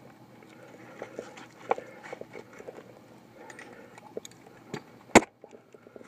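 Gloved hands and the climber's body scraping and knocking against tree bark while climbing a trunk: scattered rubbing and small clicks, with one sharp knock about five seconds in.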